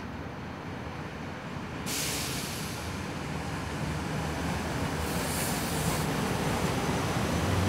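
Amtrak locomotive-hauled passenger train passing on the far track, its wheels rumbling on the rails and growing louder. A sudden hiss comes in about two seconds in, and another brief hiss around five seconds.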